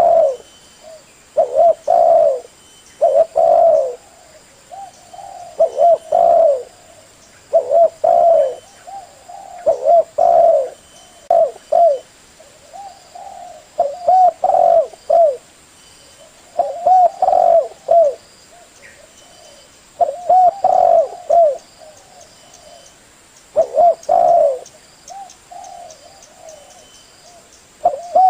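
Male spotted dove (tekukur) cooing: short phrases of a few low coos repeated every two to three seconds. This is the male's call that draws in females and other doves, used as a lure.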